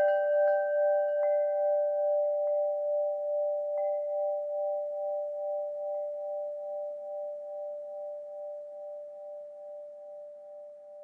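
Metal wind chime tubes ringing after a strike, their clear sustained tones wavering gently and slowly fading away, with a few faint light taps of the chimes in the first few seconds.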